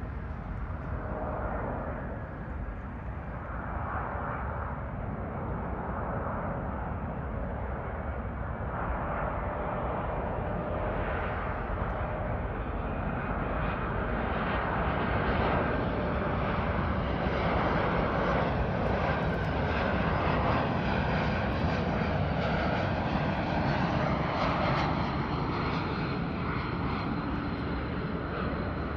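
Airbus A220-300 airliner on final approach, its two Pratt & Whitney PW1500G geared turbofans at approach power. The jet roar grows louder as the plane comes closer, levels off from about halfway, and carries a thin high whine.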